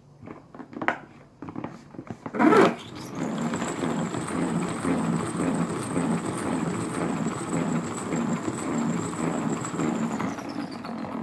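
Plastic salad spinner: a few knocks as the lid is set in place and a loud clunk about two and a half seconds in. Then the basket spins with a steady whirring rattle for about seven seconds, spinning the water off washed lettuce. A high whine in it falls in pitch near the end as the spin slows.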